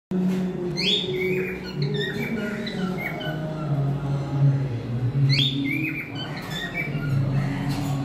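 Cockatiel whistling and chirping in two runs of short, high, falling calls, the second starting about five seconds in, over steady low background tones.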